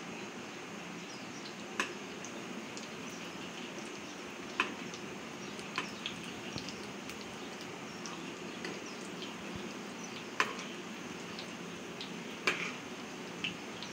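Fish roe fritters sizzling steadily in hot oil in a pan, with a handful of sharp clicks scattered through.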